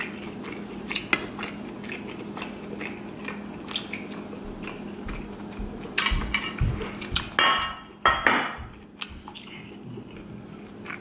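Eating lobster with the hands: scattered clicks and clinks of shell and cutlery against dishes. A cluster of louder, rougher sounds comes from about six to nine seconds in.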